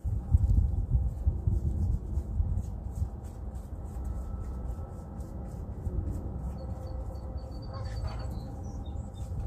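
Wind rumbling on the microphone. A bird chirps a quick run of short notes about seven seconds in.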